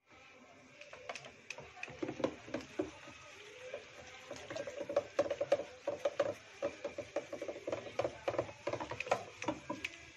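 Wooden hand churner (madhani) spun back and forth between the palms in a steel jug of lassi and gram flour, with many quick clicks and knocks of wood on steel and the liquid sloshing. It is whisking the besan into the lassi to make the kadhi base.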